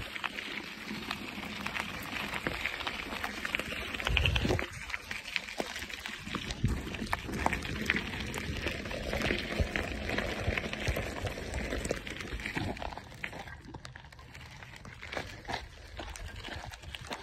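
Mountain bike rolling fast over a gravel and dirt trail: tyres crunching on loose stones and the bike rattling and knocking over bumps, with a heavier thump about four seconds in. It gets quieter after about twelve seconds.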